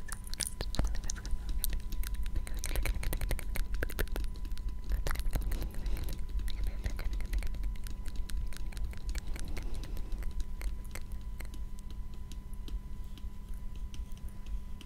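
Dense, irregular soft clicks and rustles close to the microphone, thinning out after about seven seconds. Under them runs a steady electrical hum and low rumble from a failing Rode microphone.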